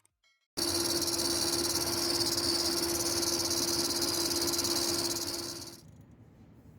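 Nissan Patrol Y62 power steering pump making a steady high-pitched whine with a hiss, the noise of a failing pump. It cuts in suddenly and fades out after about five seconds.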